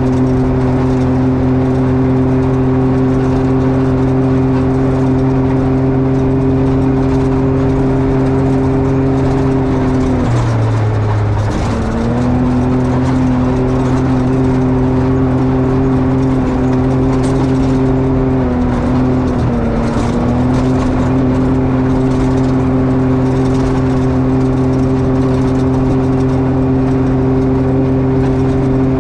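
Can-Am XRC side-by-side engine running at a steady cruising speed, its pitch dropping briefly about ten seconds in and again near the middle before picking back up.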